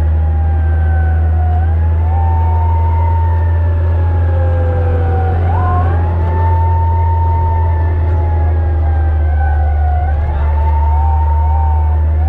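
Fire truck siren wailing, heard from inside the cab: one tone slowly rising and falling, broken by a few short quick chirps. Under it runs the truck's loud, steady engine drone.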